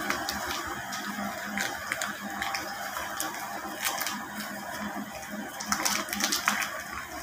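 A plastic bag of powdered milk crinkling and crackling as it is handled, most of all about four seconds in and again for about a second near the end, over a steady mechanical hum.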